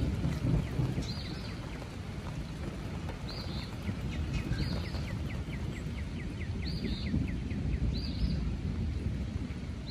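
Low rumble of distant rolling thunder from a thunderstorm, with short high chirps about once a second. Near the middle a northern cardinal sings a quick run of downslurred whistled notes, about five a second.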